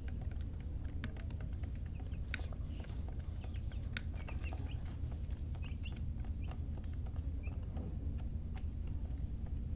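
Domestic chicks peeping in short, scattered chirps, with sharp little clicks among them over a steady low rumble.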